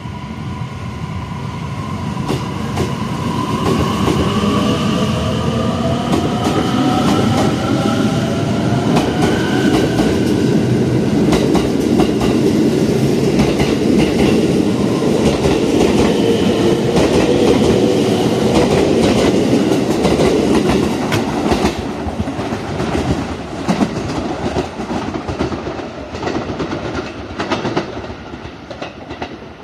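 JR 255 series limited-express electric train pulling out and picking up speed past the platform. Its traction motors whine, rising in pitch over the first ten seconds or so. The wheels then clack over the rail joints as the cars go by, and the sound fades away near the end.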